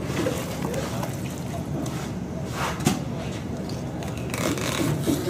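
Wet trickling and squelching as a large salmon is gutted by hand, with indistinct voices in the background and one sharp clack about three seconds in.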